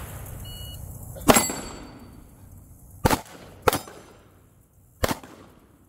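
Four 9mm pistol shots from a Glock 45 fired at steel targets: the first, about a second in, is the loudest, then a pair about half a second apart, and a last shot near the end. Just before the first shot comes a short electronic beep, a shot timer's start signal.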